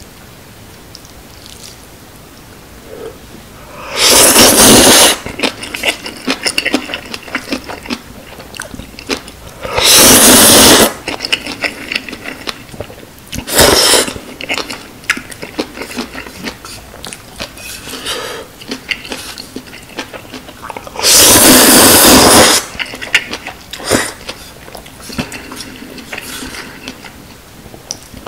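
Instant ramen noodles slurped loudly into the mouth four times, each slurp lasting about a second, with quieter wet chewing and chopstick clicks between them.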